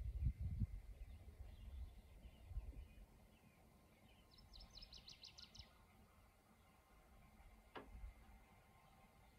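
Quiet outdoor ambience. A low rumble on the microphone in the first second, then a small songbird sings a quick high trill of about eight notes in the middle, with a single click near the end.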